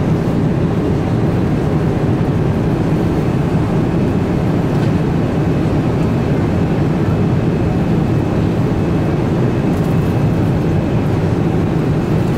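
Steady in-flight cabin drone of a Boeing 777-300ER, the even rush of airflow and engine noise heard inside the passenger cabin.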